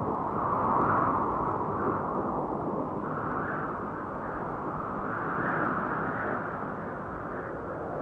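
DJI Phantom 1 quadcopter in flight, heard from the GoPro it carries: a muffled, steady rushing of rotor wash and wind that swells and eases every couple of seconds.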